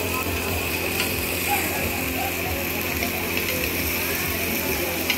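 A machine running with a steady mechanical hum, with a few sharp clicks scattered through it.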